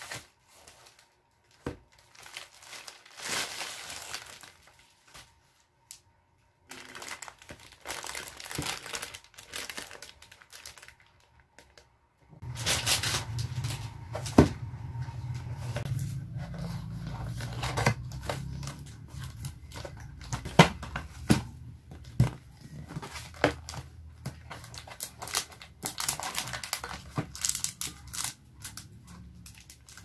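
Bubble-wrap and cardboard packaging crinkling and rustling in the hands, on and off, with sharp clicks and taps as the box is handled and opened. A low steady hum comes in about twelve seconds in and stays.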